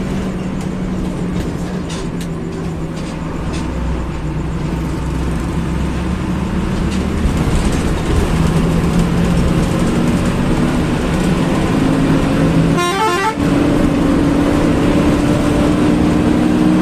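Bus engine and road noise heard from the front of the cab while driving. From about halfway through, the engine note climbs steadily as the bus accelerates, with a short break about 13 seconds in.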